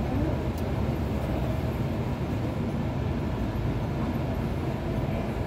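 Steady low rumble of an airliner and its pushback tug on an airport apron, with no marked changes.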